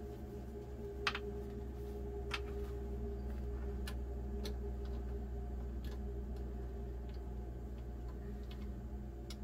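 Scattered light clicks and taps of a rifle sling's metal hardware being fitted at the front of the rifle, about seven over several seconds, over a steady low hum.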